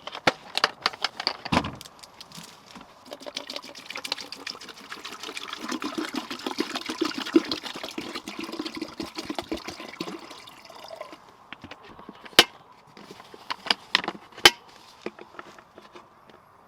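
Water being poured into a container for several seconds, preceded by a run of small clicks of handling and followed by a few sharp knocks.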